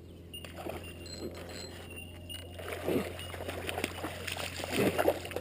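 Water splashing and sloshing at the surface beside a kayak, with louder splashes about three seconds and five seconds in.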